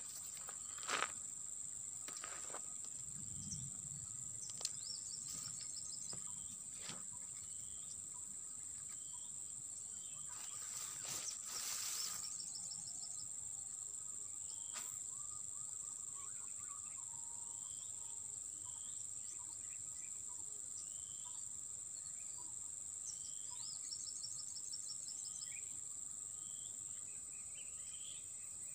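A steady high-pitched insect drone with scattered bird chirps and a few sharp clicks, and a brief louder rush of noise near the middle.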